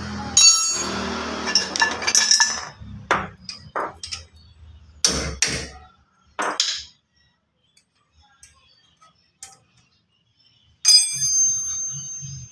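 Metal brake parts and tools clinking and knocking, some with short bright ringing tones, during removal of a disc brake caliper. After a quiet few seconds, a metal part is struck near the end and rings out for over a second.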